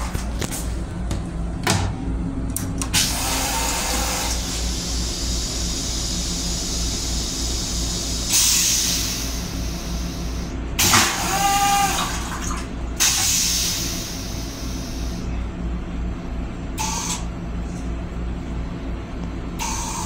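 Flush of a Metro-North M7 railcar's stainless-steel toilet: a hissing rush of rinse water about three seconds in, lasting some seven seconds, over a steady low hum. A short pitched tone sounds just after the rush ends.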